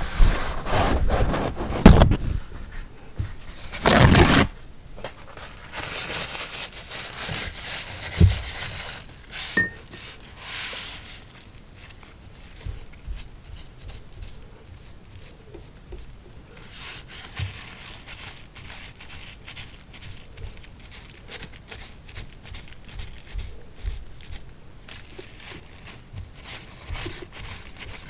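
Paper towel crinkling and rustling in loud short bursts over the first few seconds, then faint scraping, rubbing and light taps as a paintbrush is wiped clean.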